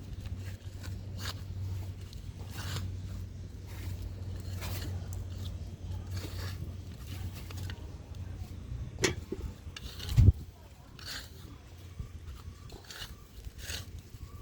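Repeated short scrapes of digging in garden soil to lift potatoes, about one a second, over a low steady hum. A single sharp thump about ten seconds in is the loudest sound.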